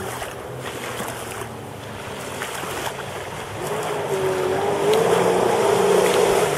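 Sea-Doo GTi jet ski running at speed on the water, its engine hum with a wavering whine swelling louder about three and a half seconds in as the ski turns close by, over the wash of its spray and wind on the microphone.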